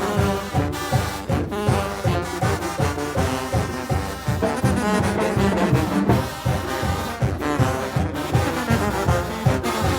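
A Mexican banda brass band playing live: trombones and trumpets carry the tune over a steady low beat of about three to four pulses a second.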